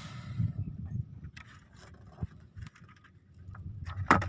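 Faint, uneven low rumble of wind and water around a small boat at sea, with a few light clicks and one brief knock near the end.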